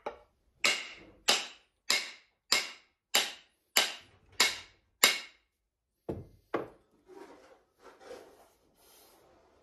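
A steel hammer striking a hafted axe eight times, evenly, a little under twice a second, driving the head down onto its new wooden handle to seat it before wedging. Two lighter blows follow about six seconds in, then softer knocks and rubbing as the tools are handled.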